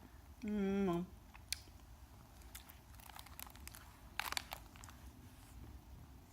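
A short wavering hum of a voice about half a second in. Then scattered soft crinkles and crunches come and go, from a snack being handled and chewed.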